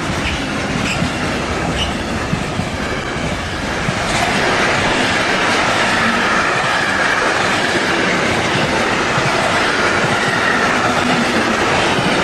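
Intermodal freight train's wagons rolling past close by: steady wheel-on-rail rumble with clatter over the rail joints. It grows louder about four seconds in, where a high whine joins it.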